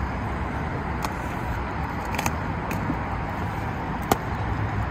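Steady rumble of road traffic with a few sharp clicks and knocks, the loudest about four seconds in.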